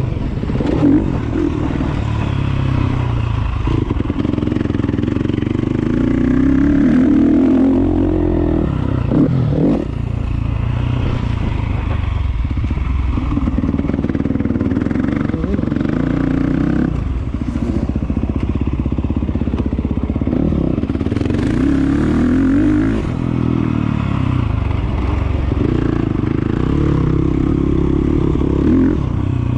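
Enduro motorcycle engine ridden hard off-road, its revs climbing and dropping back again and again every few seconds.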